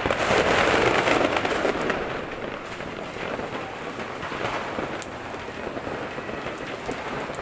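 Many firecrackers and fireworks going off at once, a dense continuous crackling, loudest for the first two seconds and then a little fainter.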